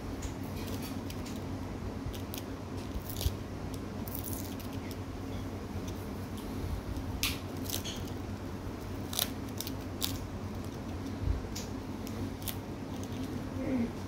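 Small scissors snipping at the bandage on a pigeon's fractured leg: a dozen or so short, sharp snips at uneven intervals, over a steady low hum.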